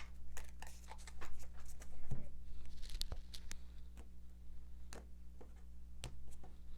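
Tarot cards being shuffled and handled: a run of quick, irregular card clicks and snaps, over a steady low hum.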